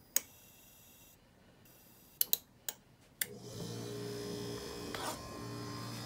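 A few sharp clicks, then about three seconds in the Whirlpool WRX735SDBM00 refrigerator's compressor and fan start up and run with a steady electric hum: the fridge is running again on its newly replaced main control board, curing the not-cooling fault.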